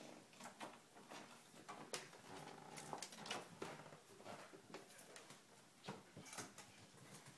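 Faint, scattered taps and clicks of Himalayan cats' paws and a small toy batted about on a hardwood floor.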